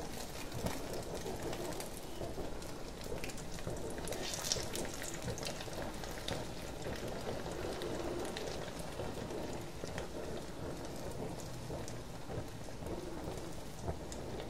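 A paratha chicken roll shallow-frying in hot oil in a pan: a steady crackling sizzle of many small pops while hot oil is spooned over the top of the roll.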